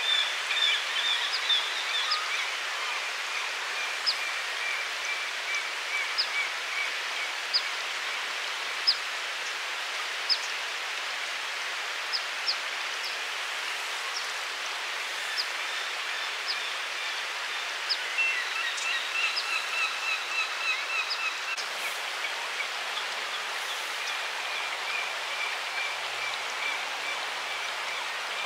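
Steady rush of flowing river water, with small birds calling over it: sharp single chirps every couple of seconds and runs of rapid twittering near the start and again about two-thirds of the way through.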